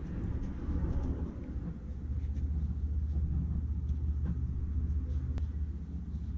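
A low, steady rumble, with a faint click about five seconds in.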